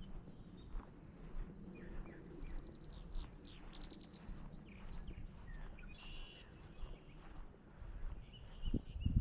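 Songbirds chirping and calling in short notes and quick trills over a low, steady outdoor rumble, with a couple of soft thumps near the end.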